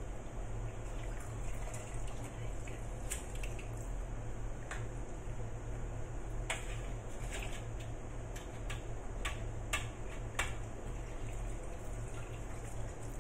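Wet, boiled shark fin pieces being handled in a metal pot, with water dripping and splashing and scattered light clicks, over a steady low hum.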